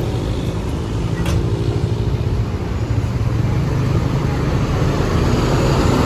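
Engine of a large road vehicle running with a deep, steady rumble over traffic noise, growing louder toward the end. There is a single faint click about a second in.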